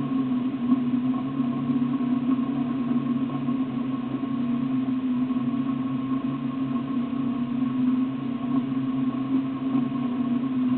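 Off-road vehicle's engine idling while the vehicle stands still: a steady low drone with a fainter higher hum, unchanging throughout.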